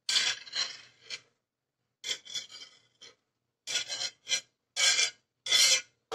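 Fresh corn kernels being scraped into a plastic blender jar with a utensil, in a series of short rasping strokes that come quicker in the second half.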